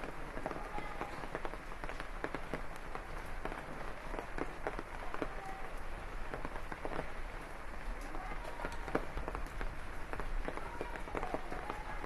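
Steady rain falling on leaves and ground, with many separate drops striking close by.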